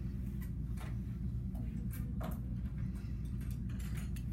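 Quiet room tone: a steady low hum with a few faint, irregularly spaced ticks.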